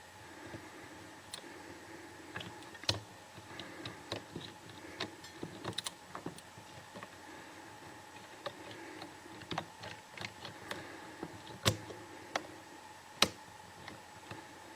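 Small irregular clicks and taps from a disc detainer pick tool working the discs of a clear plastic disc detainer training lock, with three sharper clicks, one a few seconds in and two near the end, over a faint steady hum.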